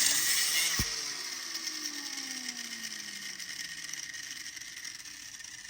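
Cut-off wheel grinding through a Grade 8 bolt. It is switched off about a second in with a click, and the wheel coasts down, its hum falling steadily in pitch and fading away.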